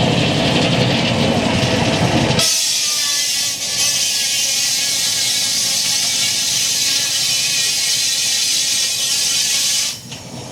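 Steam-driven sawmill machinery running with a low, heavy rumble. About two seconds in it cuts abruptly to a loud, steady hiss that lasts most of the rest, then drops away near the end.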